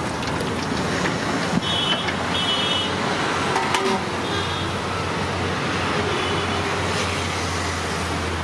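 Steady roadside traffic noise, with a steady low hum and several short, high beeps, such as vehicle horns, near the start, in the middle and near the end.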